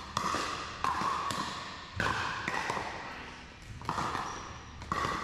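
Pickleball paddles hitting the plastic ball in a rally: a sharp, hollow pop every second or so, each one echoing in a large hall.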